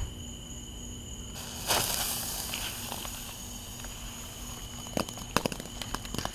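A small dollar-store sparkler-type firework catches light with a sudden hiss about a second and a half in, then crackles with a run of sharp pops as it sprays sparks from about five seconds in.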